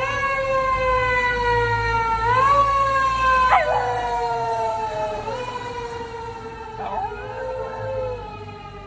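Fire engine siren wailing in long, slowly falling tones that rise again every few seconds, with a Shiba Inu howling along to it.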